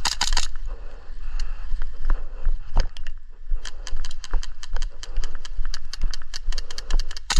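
Airsoft guns firing in close quarters: a quick run of rapid shots right at the start, then scattered sharp clicks and cracks that grow more frequent in the second half, over a low rumble of handling and movement on the body-worn microphone.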